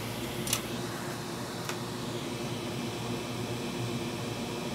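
Steady hum and hiss of running bench equipment, with two light clicks, the first about half a second in and the second about a second later.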